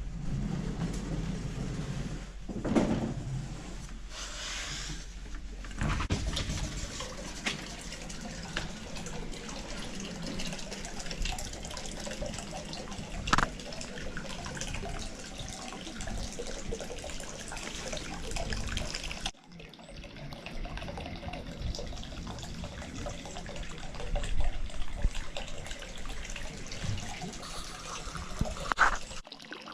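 Hot-spring water pouring steadily into a bath, with a brief dropout about two-thirds of the way through.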